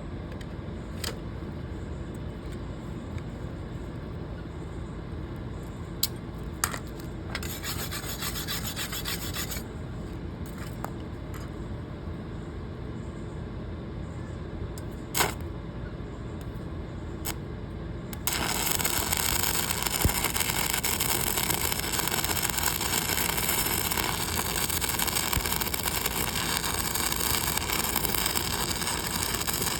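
A few clicks over a low steady hum, then about 18 seconds in a welding arc strikes on a steel door hinge and crackles steadily, a rough, even hiss, through the rest.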